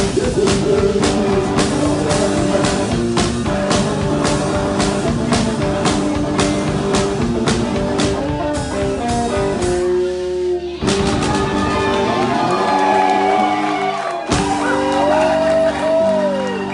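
One-man band playing rock: guitar over a steady kick-and-snare beat. The beat drops out about ten seconds in. The guitar then rings on, with a hard chord around fourteen seconds and a bending note near the end.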